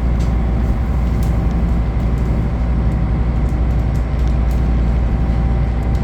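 Steady low drone of a sightseeing cruise boat's engine, heard on board while under way.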